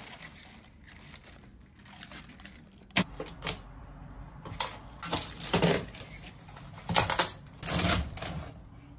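Irregular clicks and taps in short bunches, beginning about three seconds in and heaviest in the second half.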